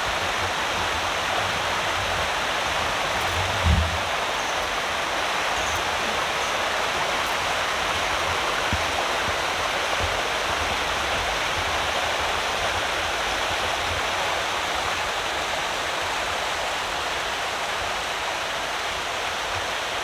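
Mountain stream rushing steadily over rocks, with a brief low thump about four seconds in.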